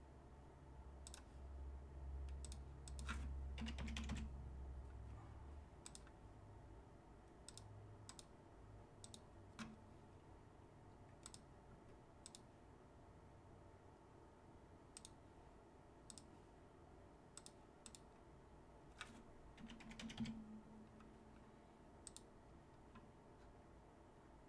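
Faint, scattered sharp clicks, roughly one a second, with two brief clusters of handling noise about 3 seconds in and near 20 seconds, over a low hum in the first few seconds.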